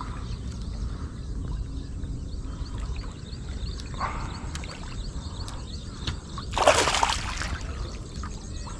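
A hooked snakehead splashing at the water's surface as it is drawn in to the bank, with a short splash about halfway through and the loudest splash a little later, over a steady low rumble.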